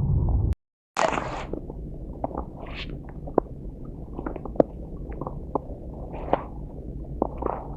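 Low rumble on the microphone that cuts out completely for a moment under a second in, then resumes with a sharp crunch followed by scattered irregular crunches and clicks of footsteps in snow.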